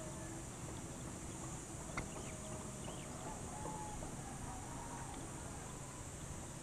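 Steady high-pitched insect buzzing, with one sharp click about two seconds in.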